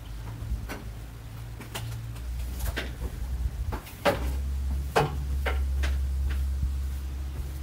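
Split firewood being handled inside a metal horse trailer: a dozen or so irregular sharp wooden clunks and knocks as pieces are dropped and stacked, the loudest about four and five seconds in.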